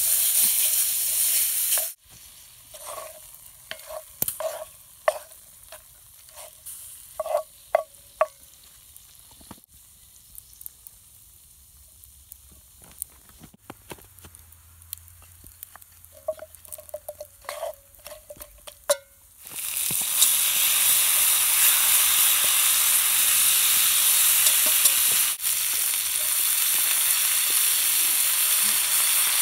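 Beef short ribs and chorizo frying in a cast iron Dutch oven over a campfire, stirred with a wooden spoon. The loud sizzle drops away about two seconds in to a quieter stretch of scattered pops and crackles, and steady loud sizzling returns about twenty seconds in.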